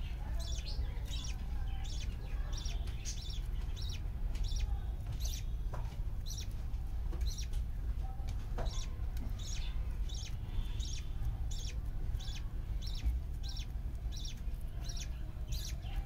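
Budgerigars chirping in short, sharp, high calls repeated about twice a second, over a steady low hum.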